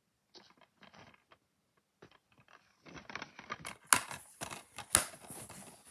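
Plastic DVD case being handled and shut: light clicks and rustling that grow busier, with two sharp snaps about a second apart near the end.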